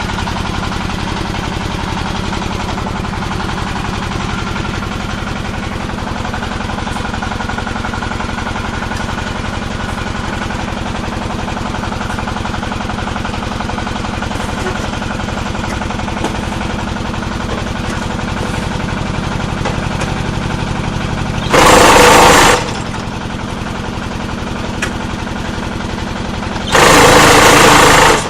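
Diesel engine driving a paving-block machine, running steadily with a fast even chug. Near the end, two much louder harsh bursts of about a second each, some five seconds apart.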